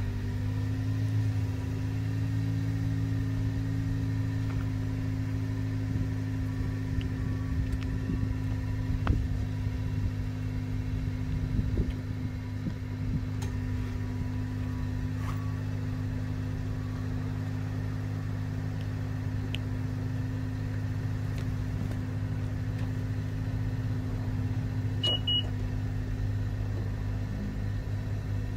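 Exhaust of a 2021 Honda Civic Sport hatchback's turbocharged 1.5-litre four-cylinder, with its stock factory mufflers in place, idling steadily right after a cold start. The note is heard at the tailpipes and is not very loud or deep.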